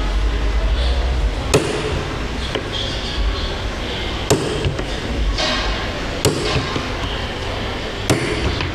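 Small hammer striking a sandal insole laid on a board, about four sharp blows spaced a second or two apart.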